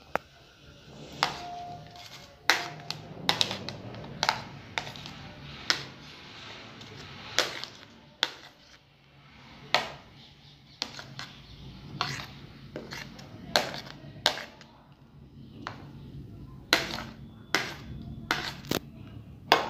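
A steel spoon clinking and scraping against a plastic plate and a steel bowl, sharp irregular knocks about once a second, over a steady low hum.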